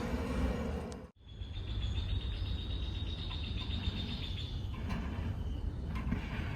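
A cricket trilling steadily at a high pitch for about three seconds, starting just after a brief cut in the sound, over a steady low rumble.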